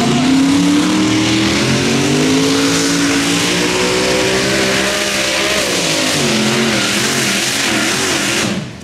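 Pulling tractor's engine at full power during a pull: its pitch climbs slowly for about five seconds, then falls and wavers, under a loud roar. The sound cuts off suddenly just before the end.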